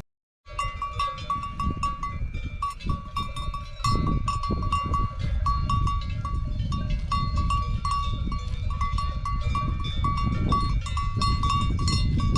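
Bells on a herd of goats clanking over and over at a steady pitch, with a constant low rumble underneath. The sound starts after about half a second of silence.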